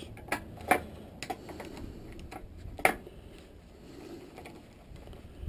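Irregular sharp clicks and taps of hand tools and small metal parts as a water heater control box is taken apart, the loudest knock about three seconds in.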